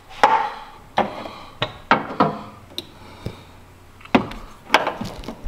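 Handling noise: about nine sharp clicks and knocks at irregular intervals, hard objects being handled and tapping together.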